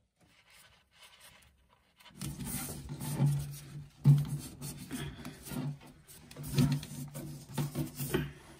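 Rubbing and scratching of neoprene insulation being handled and wrapped around a boat fridge's cold refrigerant hose, starting about two seconds in, with a low hum underneath that comes and goes.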